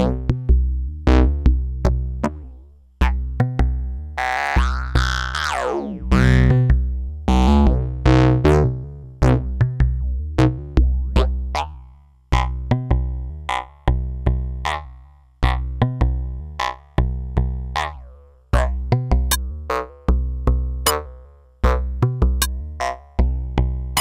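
Make Noise modular synthesizer playing a sequenced patch: repeating notes that strike and die away over a deep bass pulse, with sharp clicky percussive hits. About 4 to 7 seconds in, a sweeping tone glides up and back down.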